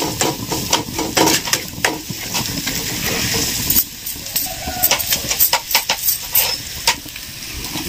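A spatula stirring and scraping a tempering of onions, green chillies and curry leaves frying in a black kadai, with quick repeated scrapes against the pan over a steady sizzle.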